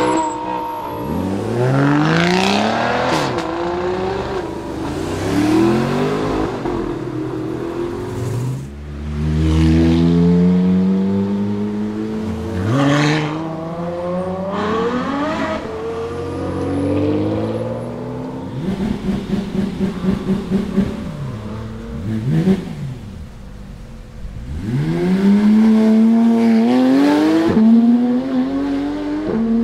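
A succession of supercars accelerating hard, among them a Lamborghini Gallardo V10, a Ferrari F12 V12 and a Porsche 911. Each engine climbs in pitch and drops back at the upshifts, one car after another. Just past the middle comes a short stretch of rapid, regular pulsing.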